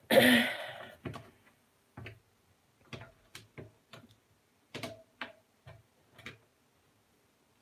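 Rolls of washi tape being handled and set into a clear plastic storage box. A loud clatter lasts about a second at the start, then come about ten light, separate clicks and taps.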